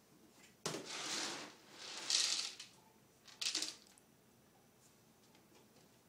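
Dry dog kibble rustling as it is scooped out of a plastic storage bin, in three bursts over the first four seconds, the second the loudest.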